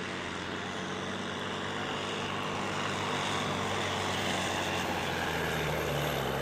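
Volvo FH16 truck's diesel engine running hard under full load as the tractor unit drags a weight-transfer pulling sled, a steady drone that gets gradually louder.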